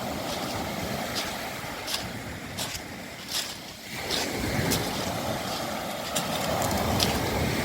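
Sea surf washing over a beach of smooth round pebbles (mongdol): a steady noisy wash that swells near the end, with irregular sharp clicks of the stones knocking together.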